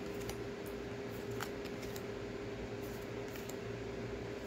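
Tarot cards of thin card stock being slid off the deck one at a time, giving faint, scattered clicks and light scrapes. A steady hum runs underneath.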